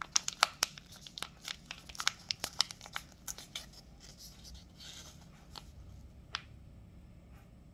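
Plastic snack packet crinkling as it is squeezed and handled, a quick run of sharp crackles over the first three seconds or so, then softer rustling with one more crackle near the end.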